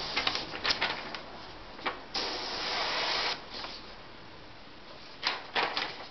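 Badger 200 single-action airbrush spraying paint: air hissing through the nozzle in short spitting spurts near the start and near the end, with a steadier hiss for about a second in the middle.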